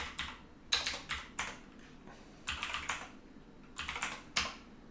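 Typing on a computer keyboard: three short bursts of keystrokes.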